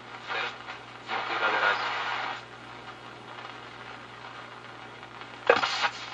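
Philco 37-640 tube radio tuned across a shortwave band: static and hiss with snatches of garbled station audio over a steady low hum, and near the end a station voice comes in loud and clear.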